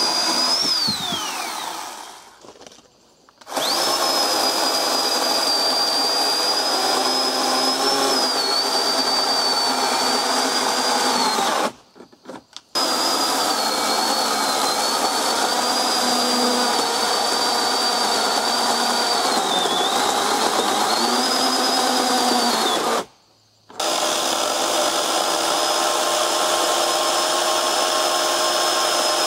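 Oregon 40V battery chainsaw's electric motor running with a high whine while cutting through logs, the pitch wavering and dipping now and then. About half a second in the motor winds down with a falling whine, and the saw stops briefly three times, starting again abruptly each time.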